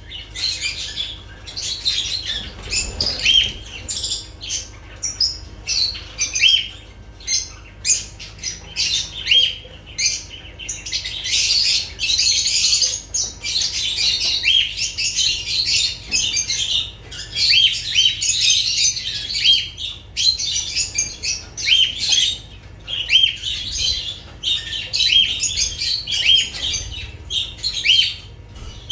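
Lovebirds chattering: a continuous, busy stream of sharp, high-pitched chirps and squawks with no pauses.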